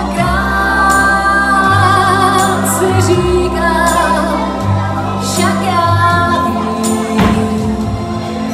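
A woman singing live into a microphone over amplified music, her melody held in long notes above a steady bass line, with light percussion strokes through it.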